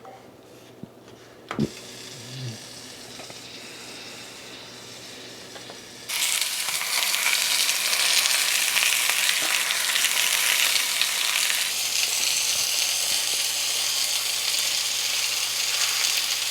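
Meat-stuffed pitas (arais) frying, with a loud, steady sizzle that starts abruptly about six seconds in. Before it there is a quieter low hiss and a single knock about a second and a half in.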